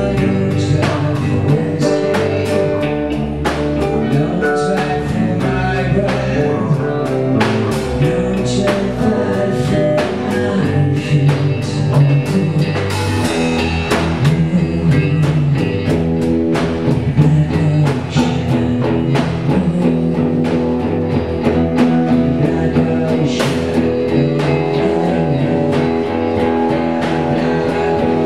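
Live band jamming a blues: electric guitar, bass guitar and drum kit playing steadily, with a singer's voice.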